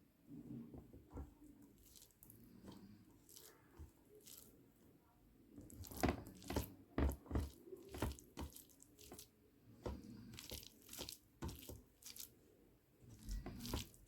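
Close-miked eating: a person chewing and handling a meal of rice, with wet clicks, smacks and squishes. The sounds start softly and come thick and loud from about six seconds in.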